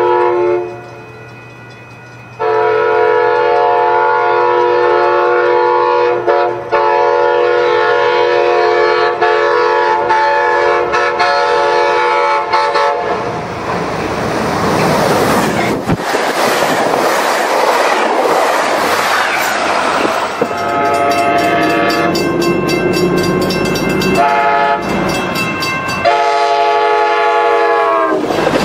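Diesel passenger train blowing its horn as it approaches, a short blast and then one long blast of about ten seconds. The rush and rattle of the train passing at speed follow. Then come more horn blasts, the last one dropping in pitch as the train goes by.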